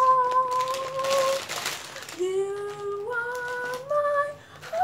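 A woman singing solo with no accompaniment. She holds one long note, takes a short breathy pause, then sings three held notes, each a step higher than the last.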